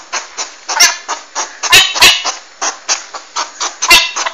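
Porcupine calling: a rapid, uneven run of short squeaky grunts and clicks, about three to four a second, with a few louder sharp clicks among them.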